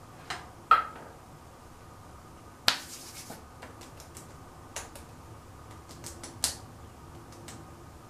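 Makeup items and their containers being handled: a scattered series of sharp clicks and taps. The loudest, about a second in, has a brief ring, and another near the three-second mark is followed by a short hiss.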